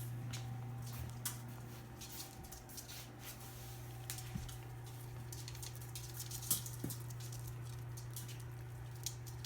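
Five-week-old Labrador puppies moving about close by: scattered light clicks and scuffs, with one sharper click about six and a half seconds in, over a steady low hum.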